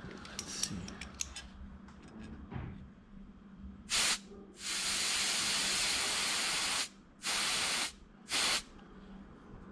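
Compressed air hissing from an air nozzle pressed to the inlet of an old air pressure gauge to test whether its needle still moves. It comes in four bursts, the second lasting about two seconds, after some light clicking of the metal gauge being handled in the first couple of seconds.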